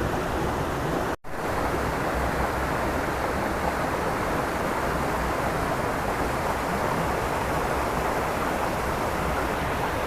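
Steady rushing noise of travel along a rough dirt road: wind on the microphone mixed with vehicle and road noise, cut off for a moment about a second in.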